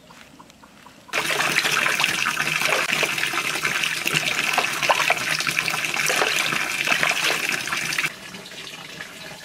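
Water splashing and sloshing in a plastic bucket as hands rub and wash a plucked duck carcass. It starts suddenly about a second in and stops sharply near the end.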